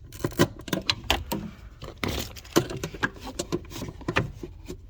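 Irregular clicks and knocks of hands and tools working on a Jeep Grand Wagoneer's headlight dimmer switch, disconnecting its wiring and undoing its screws.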